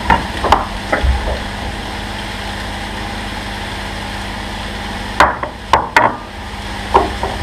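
Sharp knocks and clatter of kitchen utensils, a spatula tapping against a plate and frying pan as diced mango is scraped into the pan. A few knocks come at the start and a loud cluster about five to six seconds in, over a steady low hum.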